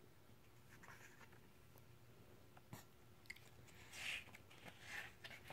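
Near silence, then the soft rustle of a picture book's paper page being turned about four seconds in, with a few faint ticks before it.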